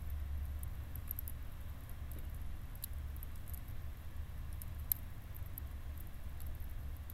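Wood campfire burning down in a stainless steel fire pit, with sparse faint crackles and pops and one sharper pop about five seconds in, over a low steady rumble.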